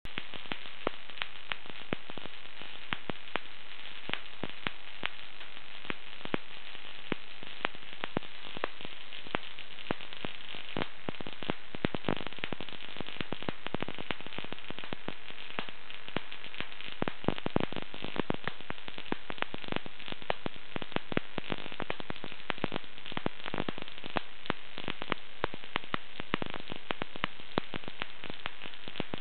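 Dense, irregular crackling of small high-voltage sparks in a homemade Marx generator fed by an ignition coil, with sharper snaps standing out now and then. The crackle comes from the charging resistors arcing over, which they are not supposed to do and which points to resistors that need replacing.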